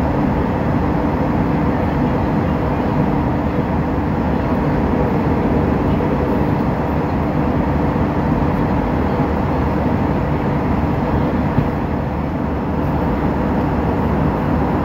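Airliner cabin noise in flight: the engines and the air rushing past the fuselage make a steady, even noise that does not change.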